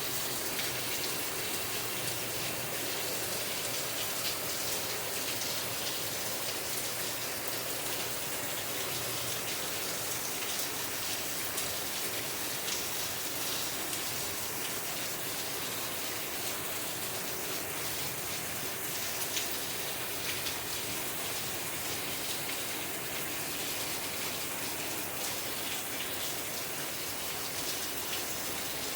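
Steady rain falling: an even hiss speckled with many small drop ticks.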